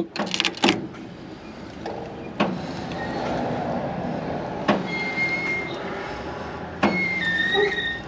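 John Deere L340 square baler's knotter mechanism being turned slowly by hand through a manual tie cycle: a few sharp metallic clicks as its parts move, with brief high squeaks about five seconds in and again near the end.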